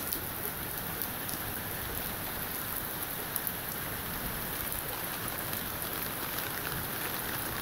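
Heavy summer rain falling steadily on garden trees, shrubs and lawn: an even downpour hiss with faint scattered drop ticks.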